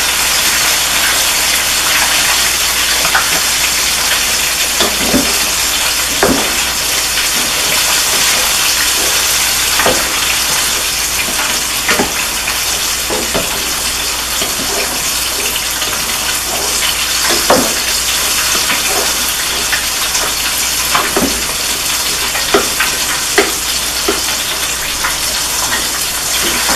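Okra, sausage and diced tomatoes sizzling steadily in a pot while a wooden spoon stirs them, the spoon knocking lightly against the pot now and then.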